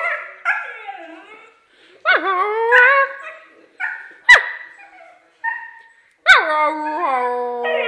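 Siberian husky 'singing': a string of short calls that bend up and down in pitch, then a longer howl near the end that slides downward.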